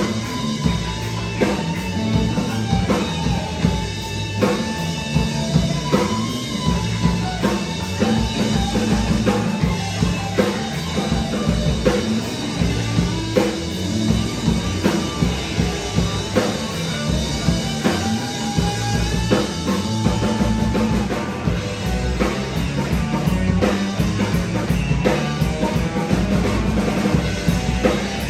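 Live rock band playing: distorted electric guitars over a drum kit keeping a steady beat.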